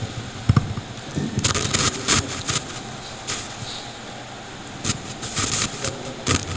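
Rustling and handling noise close to a microphone: a thump about half a second in, then a string of short, hissy rustling bursts as microphones are set down and picked up.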